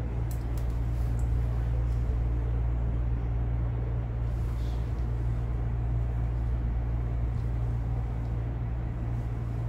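Steady low droning hum of room machinery over a constant noise bed, with a few faint light clicks.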